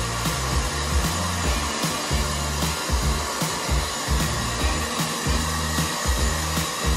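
Pet hair dryer blowing a steady hiss of air, with background music with a steady beat and bass line over it.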